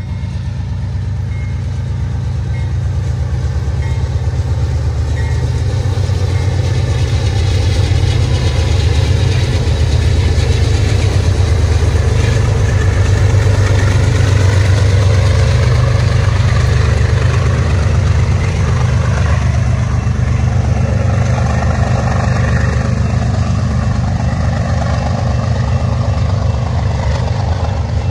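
Diesel locomotives of a BNSF freight train running with a loud, steady low engine rumble. It grows louder over the first eight seconds or so, then holds.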